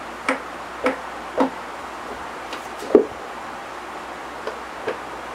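Two cats play-fighting on a wooden floor: a handful of short knocks and thumps as paws and bodies hit the boards, the loudest about three seconds in.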